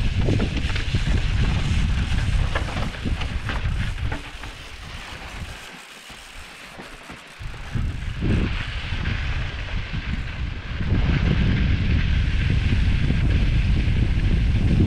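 Wind buffeting the microphone of a camera on a mountain bike descending a loose, rocky dirt trail, with tyres crunching over gravel and short rattling clicks from the bike. The wind noise eases off for a few seconds near the middle, then comes back strongly.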